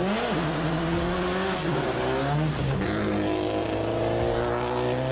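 Subaru WRX rally car's turbocharged flat-four engine revving hard on a gravel stage, its pitch rising and dropping through gear changes in the first few seconds, then held at steady revs as the car slides through a corner.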